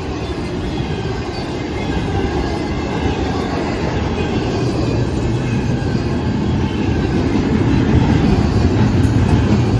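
Freight cars of a CSX intermodal train rolling past, a continuous rumble of steel wheels on rail with clickety-clack over the rail joints, growing gradually louder.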